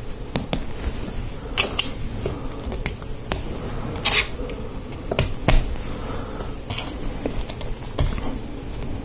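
Hard plastic Lego Technic pieces clicking and rattling as they are handled and pressed together: round bricks, bushings and an axle. It is a series of sharp, irregular clicks with a few short rattles, over a steady low hum.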